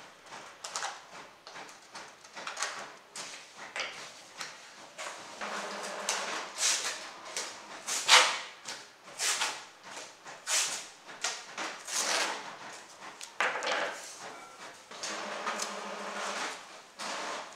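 Paper sheets being handled and trimmed with scissors, and adhesive tape pulled off its roll and torn into strips: a quick, irregular run of short rasping strokes, some longer.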